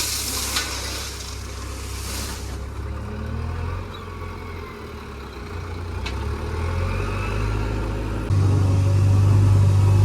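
Diesel engine of a JCB 3DX backhoe loader running under work, with short hissing stretches in the first couple of seconds. The engine gets suddenly louder about eight seconds in.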